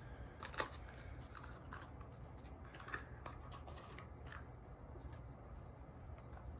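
Faint, scattered light clicks and taps with a soft rustle: small doll accessories and their packaging being handled and set down.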